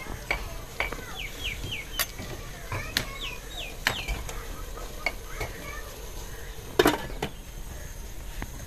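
Metal cookware clinking and knocking: a ladle against an aluminium pot and its lid set down on it, the loudest clank near the end. Short bird chirps come twice in the background.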